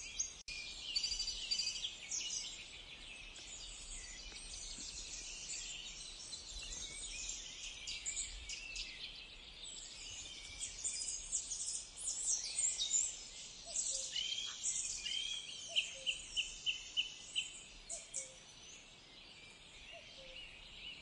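Songbirds chirping and singing, several overlapping. About three-quarters of the way through, one bird gives a run of about six evenly spaced notes.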